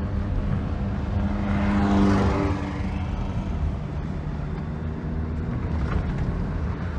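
Honda Accord engine and road noise heard from inside the car while driving, the engine running with its mass airflow sensor unplugged so the computer falls back on base programming, and pulling much better. A broad swell of noise rises and falls about two seconds in.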